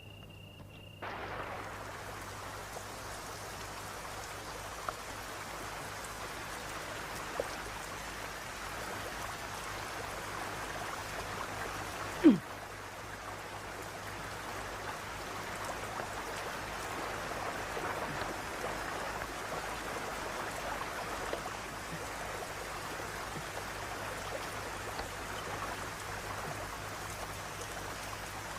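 Steady rain falling, an even hiss and patter that starts about a second in. About twelve seconds in, one short, much louder sound drops in pitch. A few faint ticks and a low steady hum lie underneath.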